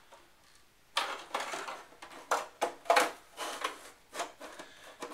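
A power supply being fitted into a Power Mac G5 case: a run of irregular knocks, clicks and scrapes of the parts handled against each other, starting about a second in.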